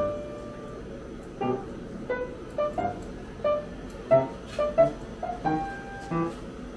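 Background music: a light melody of single piano or keyboard notes.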